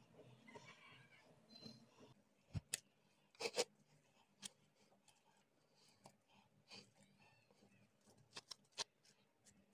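A plastic-gloved hand kneading dough in a ceramic bowl: faint rustling with scattered sharp clicks and knocks, the loudest about two and a half and three and a half seconds in and a quick run of them near the end.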